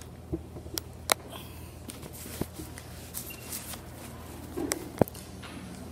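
Hall ambience with a steady low hum and a few scattered sharp clicks and knocks from people moving about, the loudest about a second in and again near five seconds.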